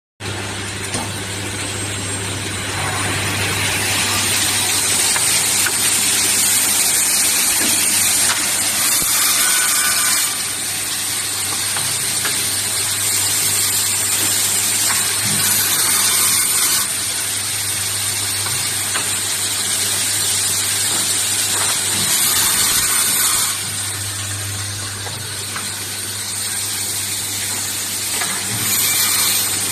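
Automatic two-head woodworking machine running through its cycle of cutting, drilling, glue spraying and setting threaded inserts. It gives a steady motor hum under a high hiss, and the loudness steps up and down every few seconds as the stages work.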